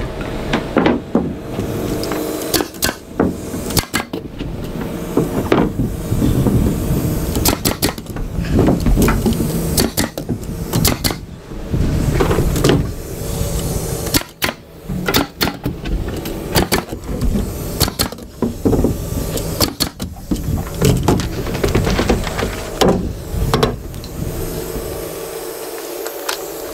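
Pneumatic framing nailer shooting nails into a wood stud wall frame: many sharp shots in irregular groups, mixed with knocks of lumber being handled, over a steady low hum.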